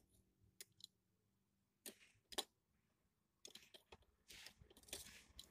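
Mostly near silence, broken by faint handling clicks and scrapes as a small motor unit with plastic gears is handled against its metal bracket inside the photocopier: a few isolated clicks, then a busier run of clicks and rustling near the end.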